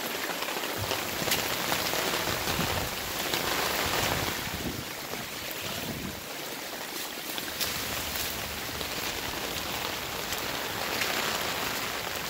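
Steady rain falling in a rainstorm: an even hiss with a few scattered drop ticks.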